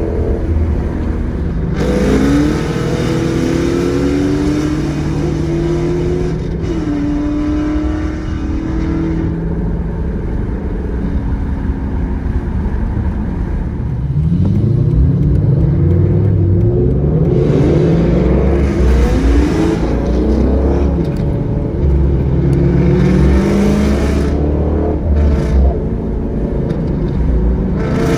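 V8 muscle-car engines accelerating hard, several pulls with the pitch climbing and then dropping back at each gear change, louder in the second half, heard from inside a car over road and wind noise.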